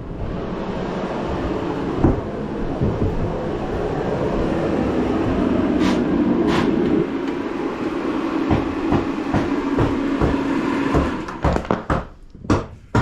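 A power tool's motor running steadily under load for about eleven seconds, then shutting off, followed by a few knocks and clatters near the end.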